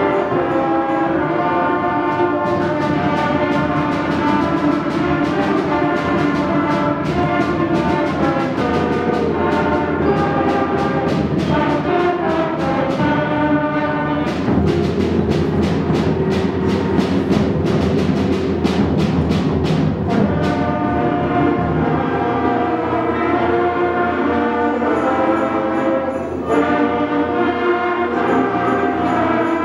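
Youth concert band of brass, woodwinds and percussion playing a piece, with percussion striking a steady beat under the sustained wind chords through much of it; the beat stops about two-thirds of the way in, and the band drops briefly near the end before coming back in.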